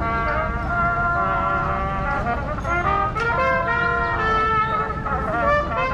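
A brass instrument, likely a busker's, playing a melody of held notes that change pitch every half second or so, over low street noise.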